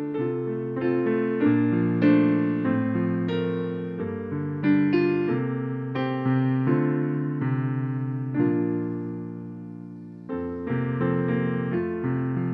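Piano playing slow chords, each note struck and left to ring. The sound dies down about ten seconds in before the next phrase begins.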